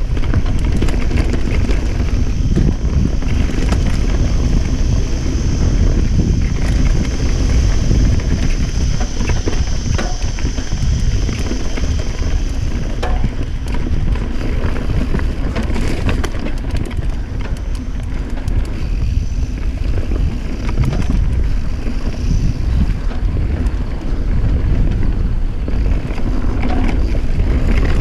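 Wind buffeting the microphone over the rumble of a Norco mountain bike's tyres on a dry dirt trail at speed, with many small rattles and knocks from the bike over rough ground.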